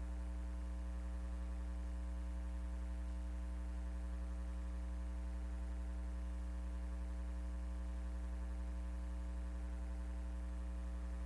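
Steady electrical mains hum: a constant low buzz with a ladder of evenly spaced overtones and faint hiss, unchanging throughout.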